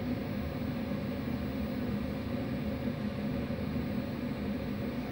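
Steady low rumble and hum inside a Finnish Intercity passenger coach moving slowly along the track, with a constant droning hum over the rumble.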